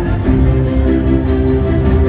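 Loud music with sustained chords over a deep bass, moving to a new chord just after the start.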